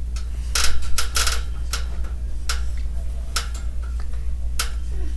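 Handling noise: small hard objects being fiddled with, giving irregular clicks and light clinks, a cluster about a second in and then single ones every second or so, over a steady low hum.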